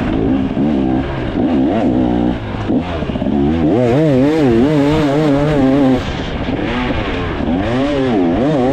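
2024 KTM 300 XC two-stroke dirt bike engine under way on the throttle, its revs rising and falling rapidly, about twice a second, in the middle and again near the end.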